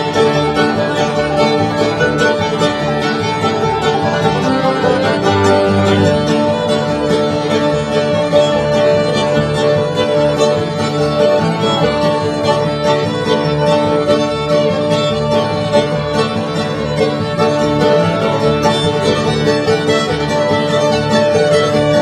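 Background music: a fast instrumental tune on string instruments, with plucked notes in a quick steady rhythm.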